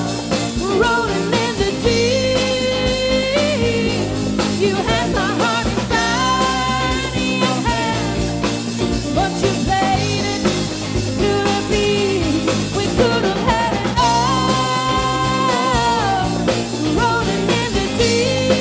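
Background music: a band playing a soul-pop song with a steady drum beat and bass and a sung melody line over it.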